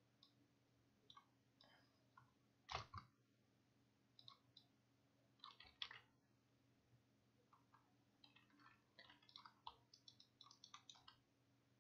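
Faint computer mouse clicks, scattered and in quick runs, with a louder click about three seconds in, over a low steady hum.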